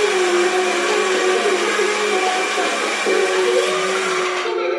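A small electric appliance motor running steadily with a whirring hiss, which cuts off shortly before the end.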